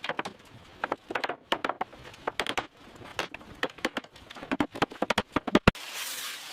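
A series of irregular sharp knocks and clicks at an uneven pace, then a steady hissing noise starts near the end.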